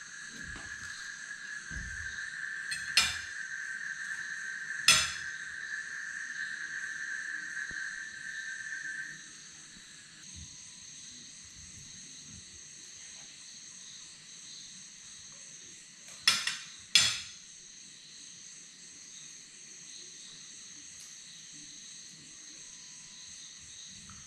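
Night insects, crickets among them, chirring steadily in several high tones, one of which stops about nine seconds in. Four sharp clicks stand out over it, the last two close together past the middle.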